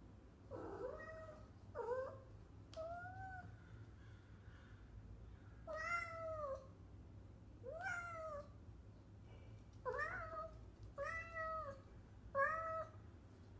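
Domestic cat meowing, about eight short meows spaced a second or two apart, each rising and then falling in pitch.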